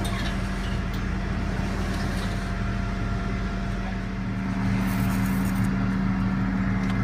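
Diesel engine of a Link-Belt 8065 crane running with a steady hum. It gets slightly louder about four and a half seconds in, with a brief hiss around the same time.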